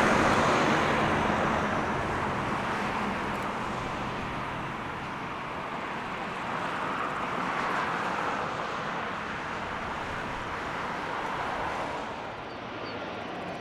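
Jet engines of a Boeing 737-900 at takeoff thrust, a steady rushing noise that is loudest at first and slowly fades as the aircraft rolls away down the runway.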